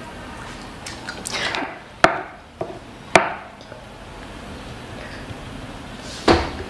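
A wooden spoon knocking and scraping against a wooden board while scooping up fried rice: two sharp knocks about a second apart, then a duller thump near the end.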